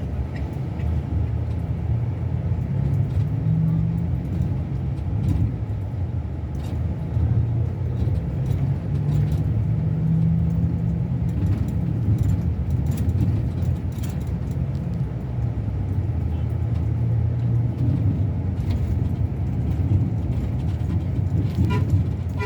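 Scania K360 coach's diesel engine running steadily with a low drone whose pitch rises and falls slightly.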